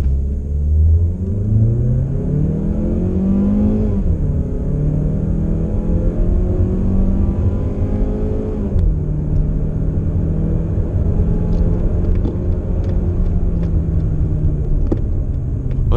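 Mazda CX-30's 150 hp engine under full throttle from a brake-held launch, revs climbing through the gears of the six-speed automatic. The pitch rises and drops sharply at an upshift about four seconds in and again near nine seconds, then holds nearly steady.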